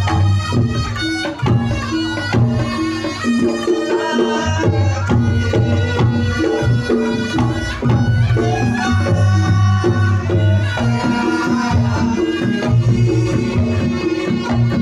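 Reog Ponorogo gamelan music playing loudly: a reedy slompret shawm carries the melody over kendang drums and steady low kenong and gong tones.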